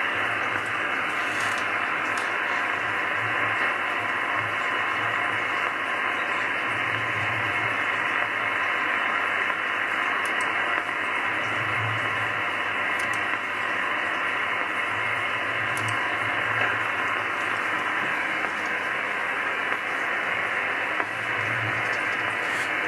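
Steady hiss from a 10-metre amateur radio receiver on a channel with no signal. The band noise is cut off sharply at the top by the receiver's narrow voice filter.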